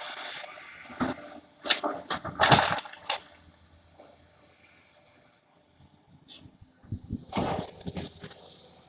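Doosan DX200A excavator working demolition debris: two spells of scraping and rattling rubble with sharp knocks, one early and one near the end, over a faint engine hum.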